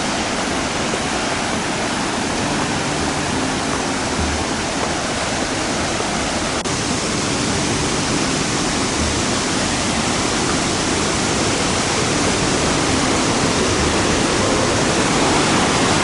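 Steady roar of a multi-tiered waterfall, water pouring over welded-tuff ledges into a pool, growing slowly louder.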